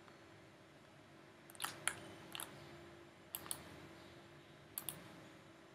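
A few faint, sharp computer mouse clicks, some in quick pairs like a button press and release, over a soft room hiss.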